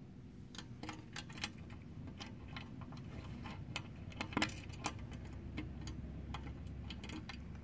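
Light, irregular clicks and ticks of small screws and washers being handled and fitted, with a few louder clicks about four and a half seconds in.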